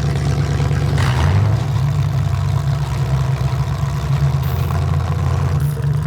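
A vehicle engine running steadily at idle, a deep low rumble whose note shifts slightly about a second in and again near the end.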